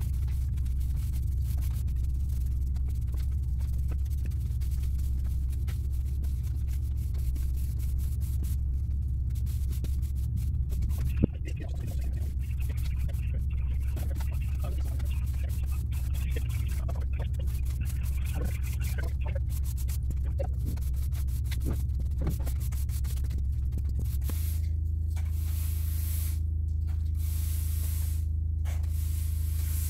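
Background music with a steady low drone that shifts to a new bass note about three-quarters of the way through. Under it is the scratchy swish of a stiff broom sweeping sand across block paving, coming and going with each stroke.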